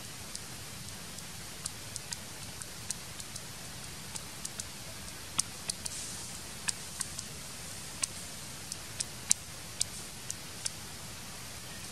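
Forest ambience: a steady hiss with irregular sharp, high-pitched clicks and ticks, a few a second at times, the loudest about nine seconds in.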